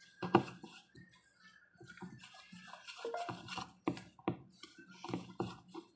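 Spatula stirring thick rice-flour batter in a ceramic bowl: irregular soft scrapes and clicks against the bowl, several strokes a second.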